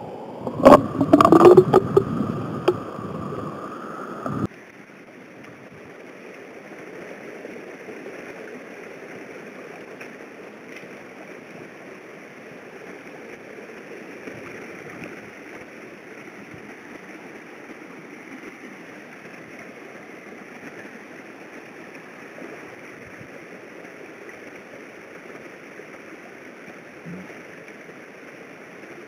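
Loud knocks and rattles as the corrugated plastic gravity-trap concentrator is handled. About four seconds in, the sound changes abruptly to the steady rushing of a shallow creek running over rocks.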